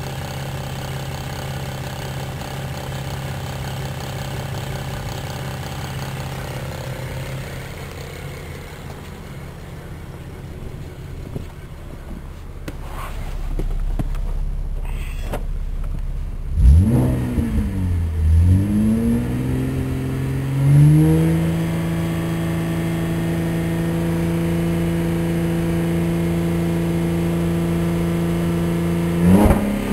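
A 2009 Holden Commodore's 3.6-litre V6 is running, first idling steadily. From just past the middle it is revved in a few quick blips, then held at a steady raised speed of about 3,000 rpm.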